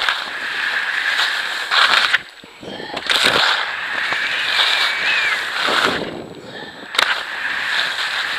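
Ski or snowboard edges scraping and carving over hard-packed snow, heard close up from a body-mounted camera with wind rushing over it. The scraping comes in loud stretches with brief lulls about two seconds in and around six seconds, and a sharp click about seven seconds in.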